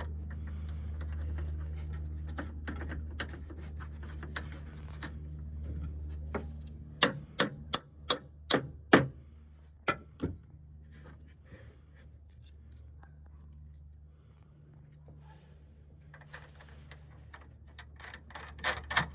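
Steel bolt being fitted by hand through the patio bracket, sharp metallic clicks and taps, about eight in quick succession near the middle, over a low steady hum, followed by quieter handling noise.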